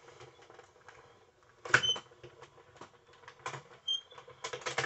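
Plastic cutting plates being handled and set on the platform of a manual die-cutting machine: scattered clicks and knocks, with one louder knock a little under two seconds in and a few short high squeaks.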